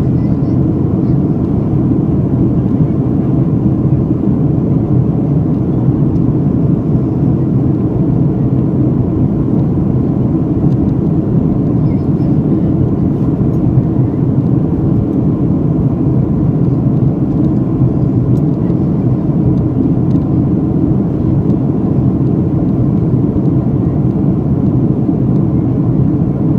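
Steady noise of an airliner in flight, a constant low rumble of engines and rushing air with no change in pitch or level.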